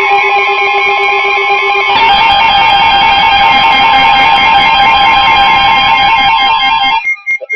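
NOAA Weather Radio warning alert tone: a loud, steady electronic tone just above 1 kHz with layered overtones. About two seconds in it turns harsher and fuller, and about seven seconds in it cuts off abruptly, leaving short separate beeps. It heralds a new severe thunderstorm warning.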